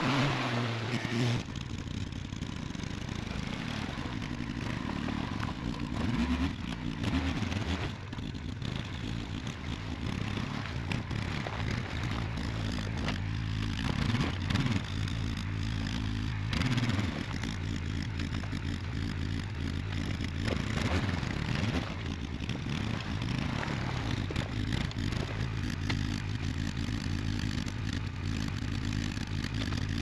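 A vehicle engine running steadily at low speed while moving a trailer, with the trailer rattling, clattering and scraping throughout.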